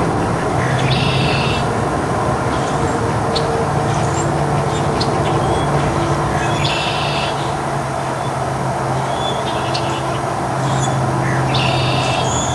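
Steady low mechanical rumble with a continuous hum. Over it a bird gives a short, buzzy call three times, about five seconds apart, among scattered faint chirps.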